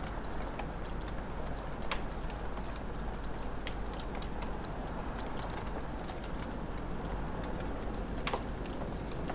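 Wood fire crackling in a fireplace: irregular small snaps and pops over a steady low rushing hiss, with a louder pop about two seconds in and another near the end.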